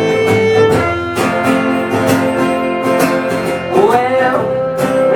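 A band playing a song, led by guitar strumming with sustained chords; a sliding melodic line comes in about four seconds in.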